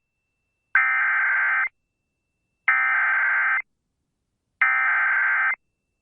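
Emergency Alert System SAME header tones: three identical bursts of rapid, buzzy data tones, each about a second long with about a second of silence between. This is the digital code that opens an emergency alert broadcast.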